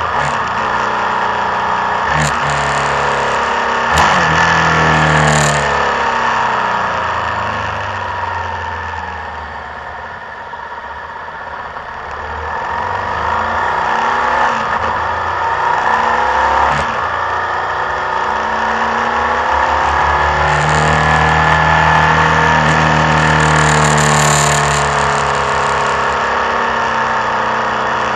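Motorcycle engine running through a series of bends on a downhill road, the revs falling away and climbing again, easing off and quieter around ten seconds in before building up again, with wind rush over the bike. A few sharp clicks break in, one about four seconds in.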